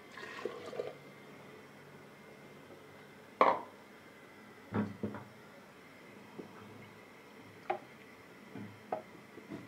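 A few separate knocks and clicks over a faint steady hiss; the loudest and sharpest comes about three and a half seconds in, with a double knock about a second later.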